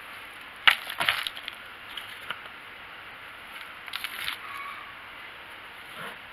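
Hand trowel scooping a mulch-and-garden-soil mix and dumping it into a plastic planter pot: sharp scrapes and crumbly rustles, the loudest about two-thirds of a second in, more around one second and again about four seconds in.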